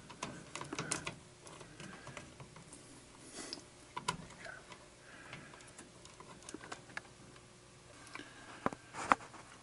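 Scattered light clicks and taps from hand work on an air-conditioning unit, with parts or tools being handled.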